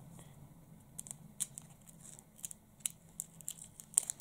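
Paper being handled as a small homemade paper sticker packet is unfolded and picked at by fingers: scattered light crackles and clicks, the sharpest about four seconds in. A faint low steady hum runs beneath.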